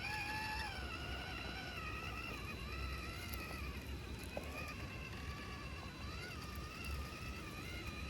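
Small electric motor and gearbox of a 1/18-scale FMS FCX18 RC crawler whining, the pitch rising and falling as the throttle is worked over rocks.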